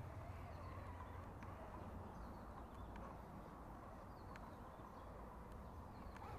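Quiet running of a small electric RC scale crawler (Axial UMG10) as it climbs a dirt bank: a faint steady motor-and-drivetrain hum with a few sharp clicks about once a second or so.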